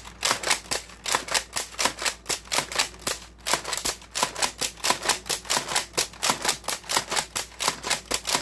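Nerf Raider CS-35 pump-action dart blaster pumped and fired over and over: a fast, even run of plastic clacks, about four a second, without a jam.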